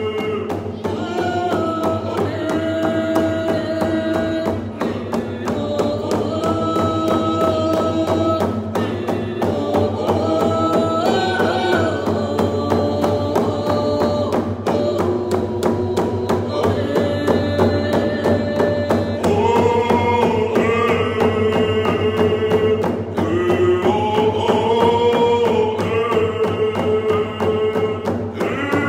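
A group of voices singing a canoe-family song together in long held notes that step between pitches, with hide frame hand drums beaten on a steady, even beat.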